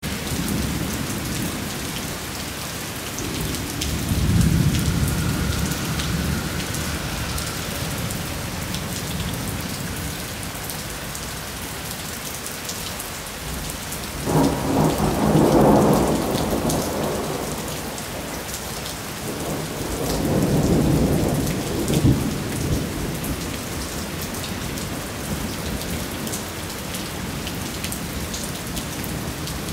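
Rain falling steadily on a wet street during a thunderstorm, with thunder rolling three times: a low rumble about four seconds in, a sudden louder clap about halfway through that rolls on for a few seconds, and another rumble a few seconds later.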